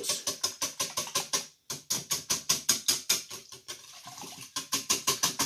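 Wire whisk beating a thin egg, buttermilk and half-and-half wash in a ceramic bowl, the wires clicking against the bowl at about six strokes a second, with a brief pause about one and a half seconds in.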